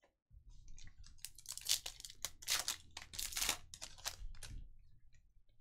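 Plastic foil wrapper of a Panini Contenders football card pack being torn open and crinkled in the hands: a run of rustling, tearing strokes lasting about four seconds.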